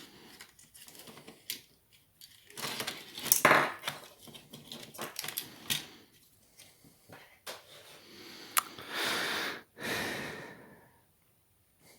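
Hands working on a laptop's insides: small metal and plastic parts clicking, rattling and scraping as they are handled and pried, with two longer scraping stretches.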